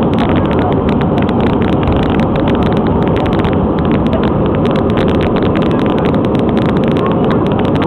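Loud, steady roar of an Airbus A320's twin jet engines and rushing air, heard inside the passenger cabin during the climb after takeoff.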